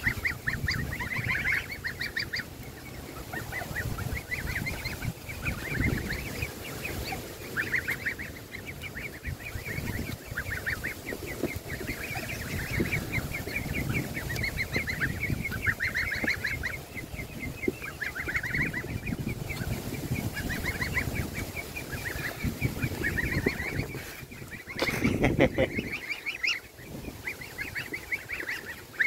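Young goslings and ducklings calling continuously in short, high peeps that come in quick runs. A brief louder noise breaks in about 25 seconds in.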